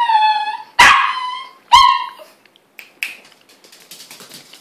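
Toy Fox Terrier crying in its 'singing' way: three drawn-out, high-pitched yelping cries in the first two seconds. Faint tapping follows.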